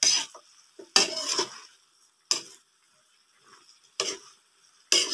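A spatula scraping and clinking against a metal wok as vegetables in a thick sauce are stir-fried, about five separate strokes roughly a second apart.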